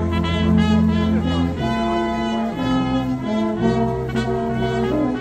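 Brass band playing a slow tune in long held chords, the chord changing about every second.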